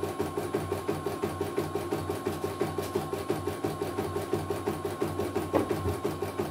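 Computerized embroidery machine stitching: its needle bar strokes in a fast, even rhythm over a faint steady motor whine, with one sharper click about five and a half seconds in.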